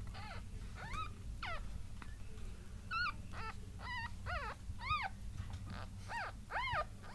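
A very young puppy squeaking and whimpering: about ten short, high cries, each rising and falling in pitch, under a steady low hum.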